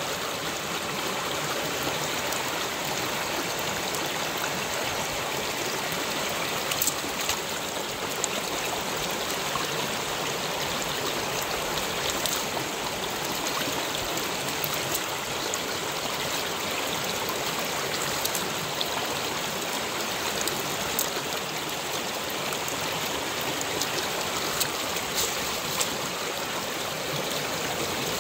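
Stream water flowing steadily, with a few short clicks scattered through.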